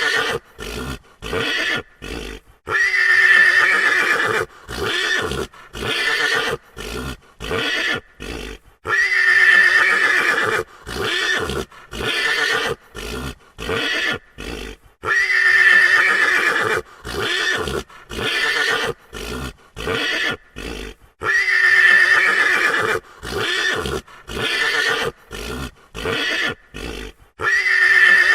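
A frightened horse neighing loudly: one long shrill whinny followed by a run of short, choppy sounds. The same sequence repeats about every six seconds as a loop, with four full whinnies and a fifth starting near the end.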